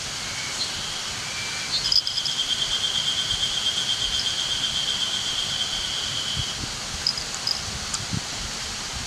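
Woodland ambience with a steady hiss, over which an insect trills continuously at a high, even pitch from about two seconds in until past six seconds. A few short high chirps come and go.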